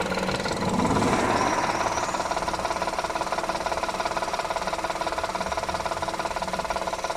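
Honda car engine running with a knock. About a second in, the revs rise and it holds steady at the higher speed; the knock is taken for a bottom-end knock like a worn fourth-cylinder rod bearing.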